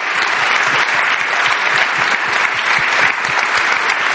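Large audience applauding steadily: many hands clapping together in a dense, even patter.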